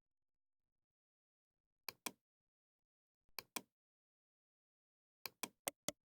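Near silence broken by short sharp clicks: two quick pairs, then a fast group of four near the end.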